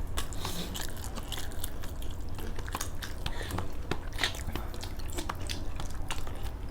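Mukbang eating sounds: close-miked chewing with irregular crunchy bites and small mouth clicks.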